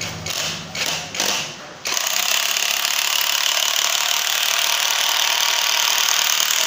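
JLD cordless impact driver hammering as its bit is driven into a wooden plank. It gives a few short blips in the first two seconds, then runs steadily with rapid impacts.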